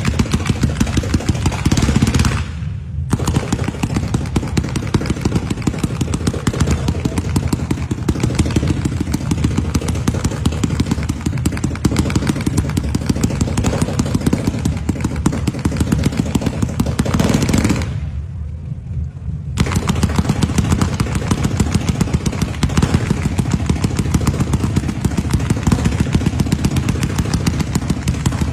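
Multi-shot firework cake (sky shots) firing continuously: a rapid string of launch pops and aerial bursts. Twice the sound goes briefly dull, about two seconds in and again near the middle.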